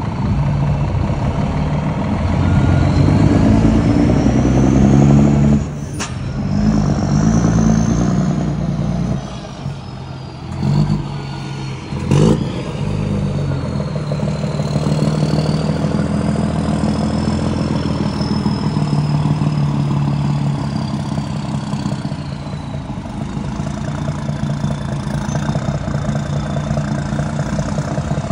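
Scania P-series truck's diesel engine pulling through a dual-tip diffuser exhaust, rising and falling in pitch as it accelerates and drops back between gears, with a thin high whistle gliding up and down above it. Two sharp clicks about six seconds apart.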